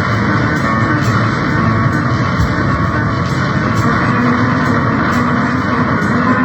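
Harsh noise music: a loud, dense, steady wall of distorted guitar-like noise, with a faint regular pulse about three times a second on top.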